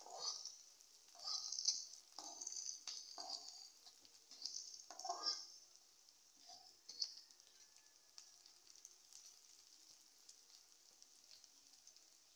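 Chopped vegetables frying in hot oil in a metal kadhai, stirred with a metal spatula that scrapes against the pan in a run of strokes over the first seven seconds or so, then only a faint sizzle.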